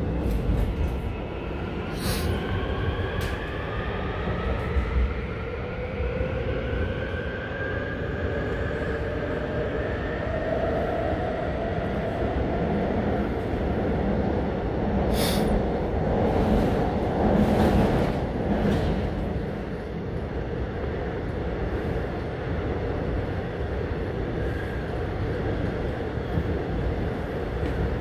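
Inside an AREX Airport Railroad train car under way: an electric motor whine rises in pitch over the first ten seconds or so as the train picks up speed. Beneath it runs a steady rumble of wheels on rail, with a few sharp clanks around the middle.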